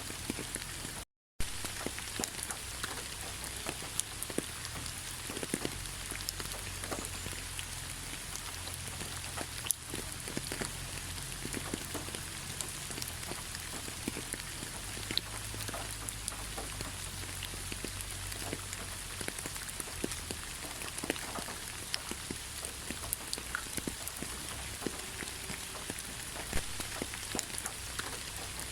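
Steady rain falling: a continuous hiss with many individual drops tapping. It drops out to silence for a split second about a second in.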